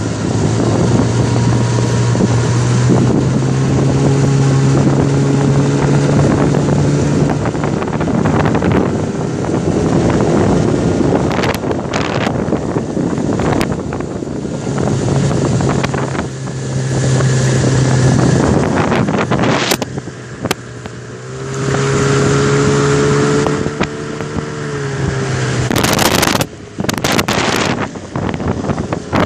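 HDX T9.8 BMS two-stroke outboard running at a steady high speed, pushing the inflatable boat on the plane. Heavy wind noise on the microphone and water rushing along the hull often drown out the engine hum, and loud gusts hit the microphone near the end.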